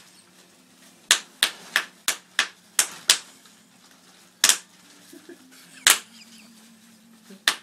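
Bubble wrap being popped by hand: sharp, irregular pops, about seven in quick succession in the first few seconds, then single pops every second or so.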